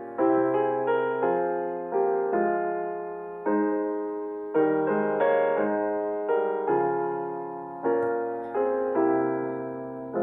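Slow, gentle solo piano music: notes and chords struck about once a second, each fading away before the next.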